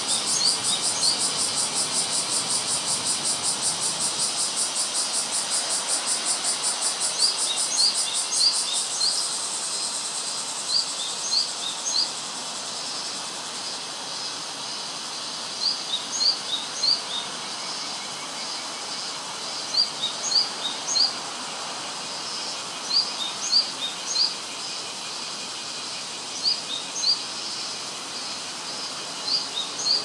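Japanese tit singing: short phrases of a few quick notes alternating high and low, repeated every three to four seconds. A cicada's fast pulsing buzz runs underneath and fades out about nine seconds in.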